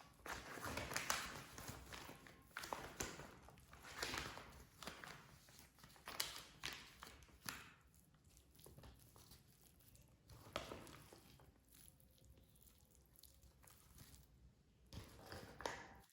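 Faint, irregular handling and eating noises: soft rustles, clicks and smacks that come in clusters, busiest in the first half.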